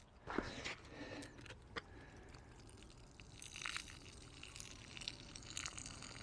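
Soda faintly dribbling and trickling out of the BB holes in a shot-up aluminium soda can as it is held up and tilted, after a couple of soft thumps about half a second in.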